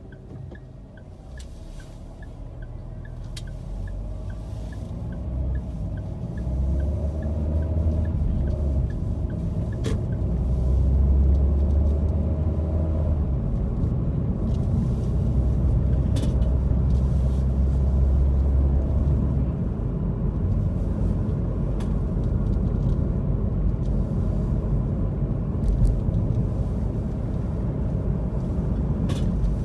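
A car pulling away from a stop, its engine and road noise rising over the first several seconds into a steady low rumble as it drives on. A run of faint, regular ticks, a few a second, sounds during the first few seconds.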